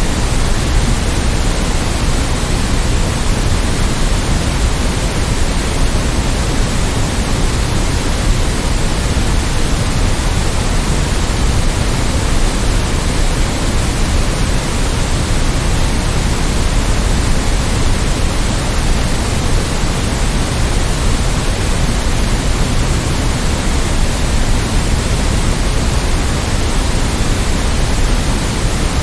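Steady generated white noise: an even, unchanging hiss with more weight in the low end.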